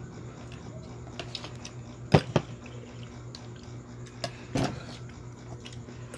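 Scattered sharp clicks and knocks of a knife working on oyster shells on a wooden chopping board and a spoon on a plate. The loudest are two knocks about two seconds in and another about four and a half seconds in. A steady low hum runs underneath.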